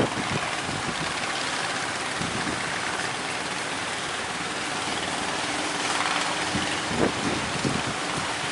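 A speedboat's engine running steadily under a constant rush of wind and surf.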